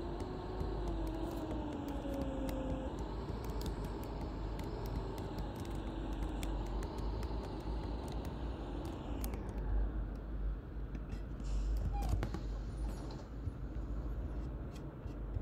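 Mercedes-Benz OC500LE bus heard from inside the cabin while under way: a steady low engine rumble, with a drivetrain whine falling in pitch over the first few seconds and another whine wavering a few seconds later. About halfway through the road hiss fades, and clicks and creaks from the bus interior follow.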